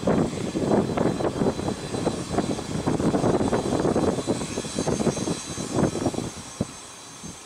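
A business jet's rear-mounted jet engines running as it moves past, a rough roar with a faint high steady whine over it. The roar eases off near the end.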